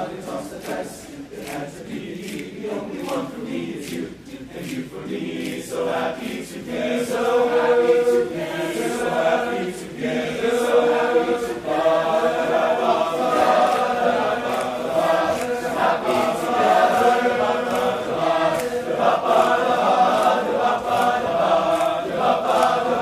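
Men's choir singing held, wordless chords in many parts, swelling louder about six seconds in.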